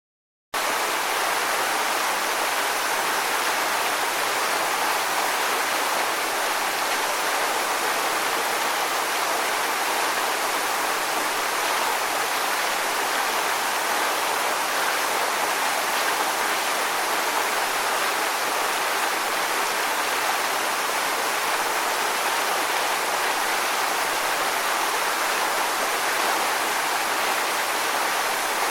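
Waterfall: a steady, even rush of falling water that cuts in abruptly about half a second in.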